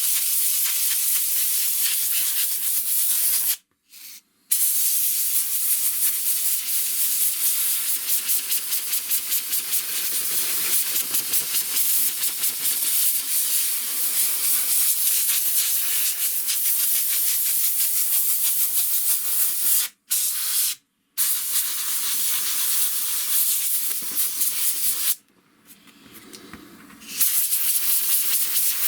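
Compressed air hissing steadily as it is blown through wet speaker grill cloth, driving off the cleaning fluid that holds the loosened dirt. The air cuts off briefly about four seconds in, again around twenty seconds, and for a couple of seconds near the end.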